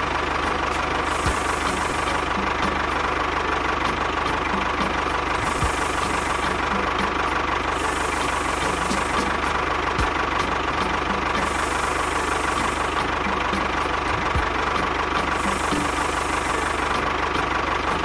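A small motor or engine running steadily and evenly, with no change in speed.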